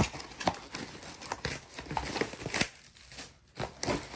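Packaging crinkling and rustling as a parcel is handled and opened by hand, with irregular sharp crackles and a short quieter lull a little past the middle.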